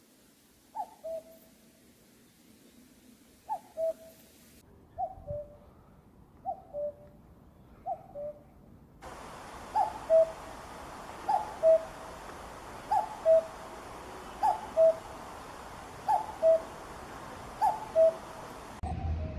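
Common cuckoo calling its two-note "cuck-oo", the second note lower than the first, repeated about every second and a half. About nine seconds in, the recording changes to a louder one with more hiss behind the calls.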